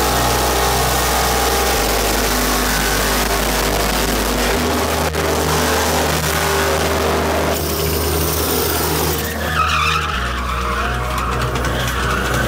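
Loud car noise with tyres skidding, over music with a deep bass line that steps to a new note every few seconds.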